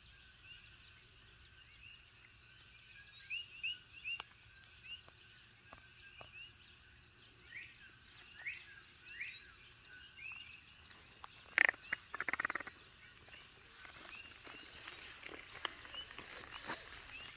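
Coqui frogs chirping in a chorus, many short rising calls overlapping, over a steady high insect hum. About twelve seconds in, a brief louder rattling noise cuts through.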